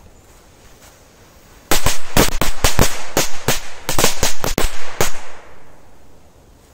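A belt of small linked firecrackers going off: after a short quiet, a rapid, uneven run of sharp bangs, about five a second, lasting about three and a half seconds, then stopping.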